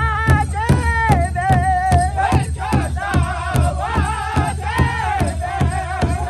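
Powwow drum group singing: several men sing high, wavering chant lines in unison over one large shared drum, which they strike together with drumsticks in a steady, even beat.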